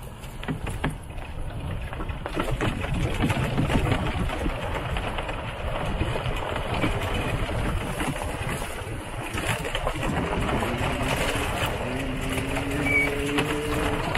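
Wind buffeting the microphone and rustling as a handheld camera is carried at a run along a wire fence. A low droning tone comes in over the last two seconds.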